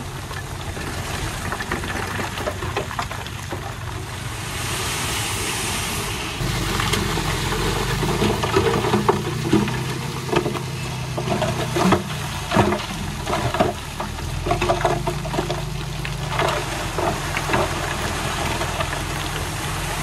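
Heavy earthmoving machine's diesel engine running steadily, getting louder about six seconds in as it takes load. A brief hiss comes about four seconds in, and clanks and knocks are scattered through the middle.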